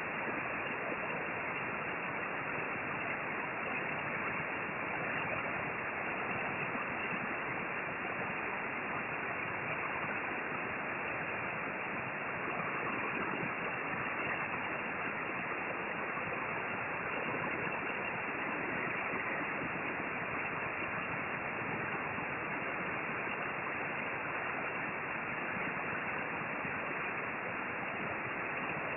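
Hot-air rework station blower running: a steady, even rush of air with no change in level.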